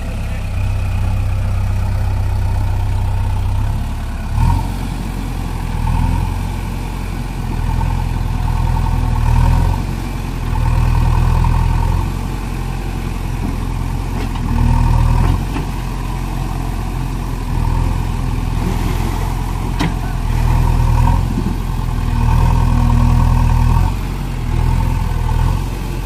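JCB 3DX backhoe loader's diesel engine running, revving up and easing back again and again as the loader arms are worked.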